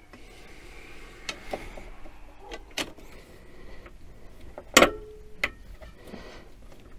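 Metal side plate of a Sainsmart 4040 Pro CNC being handled and fitted back onto the machine: a few light clicks and knocks, the loudest about five seconds in with a short ring.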